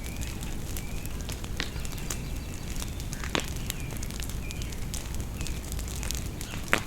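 Bonfire crackling and popping steadily, with two louder sharp pops, one about halfway through and one near the end. Small birds chirp short repeated notes over it.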